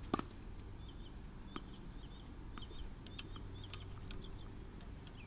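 A single sharp crack of a child's bat hitting a tossed ball just after the start. A bird chirps repeatedly in short high calls throughout.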